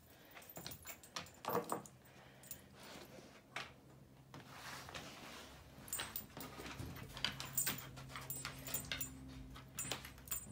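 A large dog moving about on a hardwood floor while sniffing through cardboard boxes for a hidden treat: irregular clicking of claws on the boards, a jingling chain collar and rustles of cardboard, busier in the second half.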